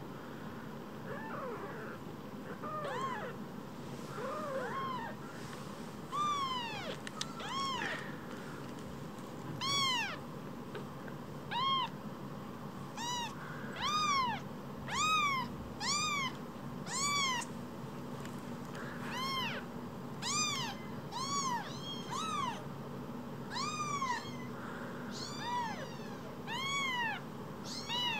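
Very young kitten mewing over and over: short, high calls, each rising and falling in pitch, a few faint ones at first, then louder and about one a second from about a third of the way in.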